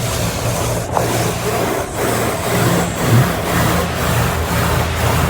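Automatic car wash running, heard from inside the car: a loud, steady wash of noise from the machinery over a low hum, dipping briefly about once a second.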